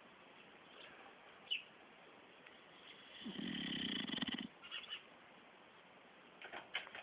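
A sleeping dog snoring: one long, vibrating snore about three seconds in, lasting just over a second, with quieter breathing between. A short click comes about a second and a half in.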